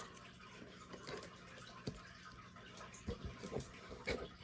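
Faint handling of trading cards: a few soft clicks and taps as cards are moved and set down, over a low steady hum.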